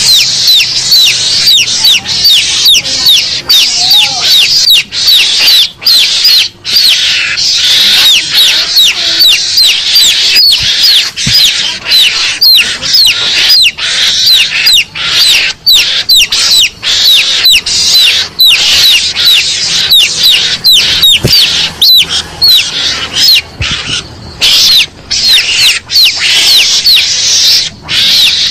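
Garangan (mongoose) lure call: rapid, high-pitched squealing calls that mostly sweep downward, several a second with brief breaks, meant to sound like a rival and provoke a mongoose into showing itself.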